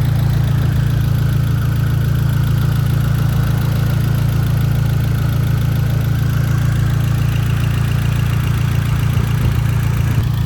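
2008 Mitsubishi Lancer Evolution X's rebuilt turbocharged four-cylinder engine idling steadily, with a light tick from the valvetrain. The owner and machinist suspect a hydraulic lifter that is bleeding off or losing its prime.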